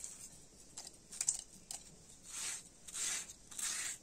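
Kitchen knife cutting into watermelon flesh: a few light clicks, then three short scraping strokes about two-thirds of a second apart.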